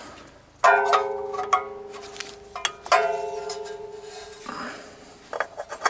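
Two bell-like chimes about two seconds apart, each struck suddenly and ringing with several steady tones that fade slowly.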